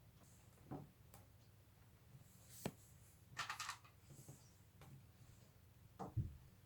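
Faint, sparse clicks and taps of plastic Lego Technic pieces being handled, with a brief rustle about halfway through and a couple of soft knocks near the end.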